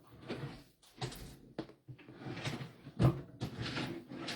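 Rummaging through craft supplies in a search: several knocks and clatters with rustling as things are shifted about.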